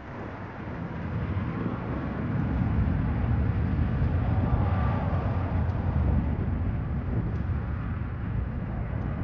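Jet engines of an Aeromexico Boeing 737 rolling along the runway: a low rumble that swells over the first three seconds, then holds steady.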